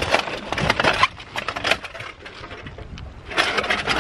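Thin aluminium stove windscreen rattling and clattering as it is handled around a gas-canister camp stove, in a quick run of knocks during the first second and again near the end.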